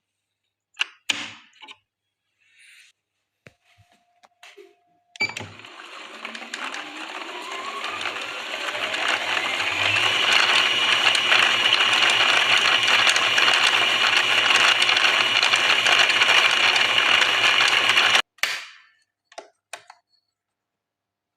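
Janome Secio embroidery machine stitching: it starts slowly, speeds up over about five seconds, runs fast and steady, then stops abruptly. A few clicks come before and after the run.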